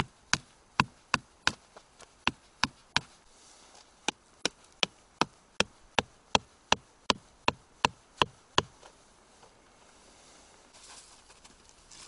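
Small axe striking a wooden stick: a run of sharp, evenly spaced knocks, about three a second, with a short pause about three seconds in, stopping well before the end. Faint rustling follows near the end.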